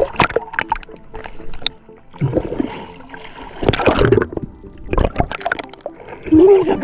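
Seawater splashing and gurgling around an action camera as it bobs at the surface and dips under, in uneven bursts with bubbling.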